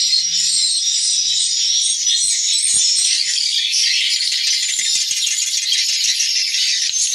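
Many swiftlets twittering together, a continuous, dense, high-pitched chatter of overlapping chirps, with a few faint clicks.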